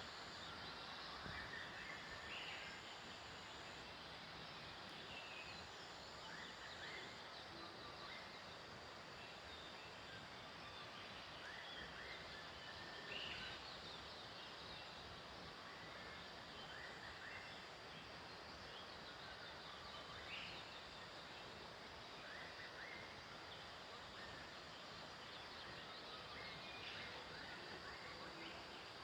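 Steady outdoor background hiss with faint, short bird calls every few seconds.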